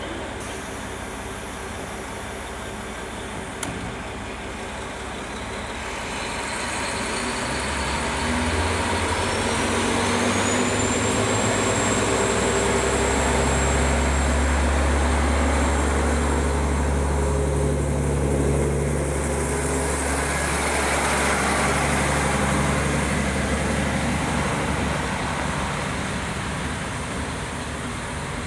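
KiHa 40 diesel railcar's engine idling, then opening up about seven seconds in as the railcar pulls away from the platform. Its low, steady drone stays loud for about fifteen seconds, with a high whine rising in over it, then fades as the railcar moves off.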